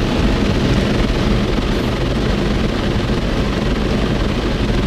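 Rotating brushes of an automatic car wash scrubbing over the car's body and glass with water spraying, heard from inside the car's cabin as a loud, steady rushing noise.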